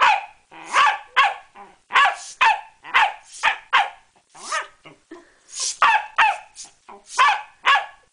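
Pembroke Welsh Corgi barking repeatedly in short, high barks, about two a second with brief pauses, at a bicycle pump hose swung in front of it.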